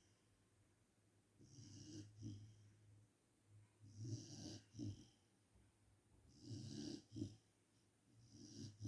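Faint snoring: four slow breaths about two and a half seconds apart.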